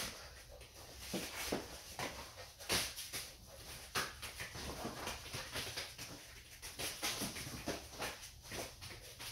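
A puppy scuffling and playing with frisbees on a floor mat: irregular taps, knocks and scrapes of paws and plastic frisbees.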